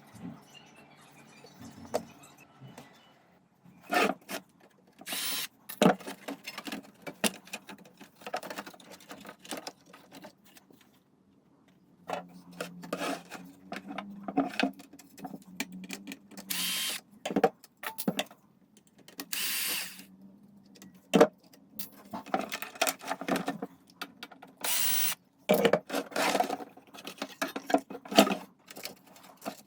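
Workbench handling and tool noise while an Aiwa NSX-K550 hi-fi is being worked on: irregular clicks and knocks of tools and parts, a short stretch of low motor hum, and several brief bursts of hiss.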